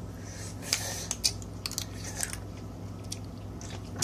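Cooked crab shells being cracked and picked apart by hand: a run of irregular small snaps and crackles.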